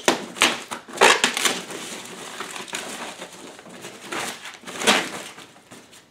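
Thin plastic wrapping crinkling and rustling as it is pulled off an A/V receiver, in several sharp swishes, the loudest about a second in and near five seconds, with softer rustling between.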